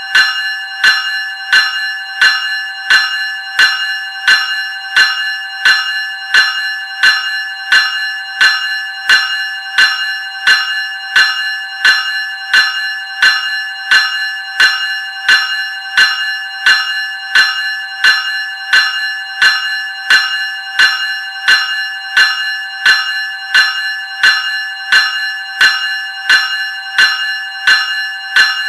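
Graham 373 Series electric bell ringing continuously. Its gong gives several held ringing tones, pulsed by a steady, even beat of strikes at about three every two seconds.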